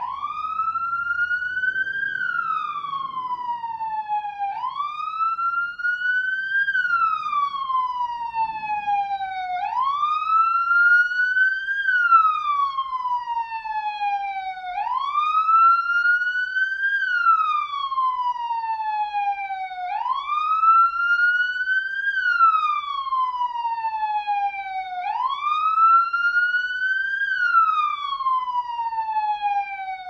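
Police siren wailing: a pitch that climbs for about two seconds, then falls more slowly for about three, repeating steadily about every five seconds.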